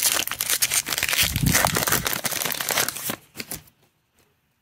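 Foil trading-card pack wrapper crinkling and tearing as it is ripped open by hand, for about three seconds, with a few separate crackles before it stops.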